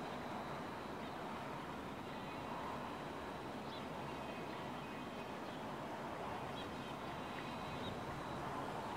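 Distant V/Line VLocity diesel railcar set running uphill, heard as a steady low drone, with birds chirping faintly over it a few times.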